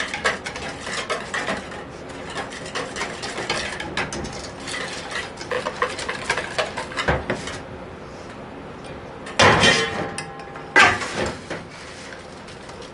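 A utensil stirring thick pancake batter in a mixing bowl, scraping and clicking against the bowl, with two louder clatters of the utensil against the bowl about three-quarters of the way through.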